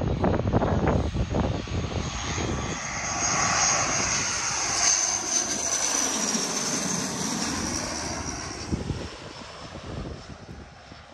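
De Havilland Canada Dash 8-400 twin turboprop passing low overhead on its landing approach. Its engine and propeller noise carries a high whine that swells to a peak midway, then fades near the end. The first second or two has low rumbling gusts.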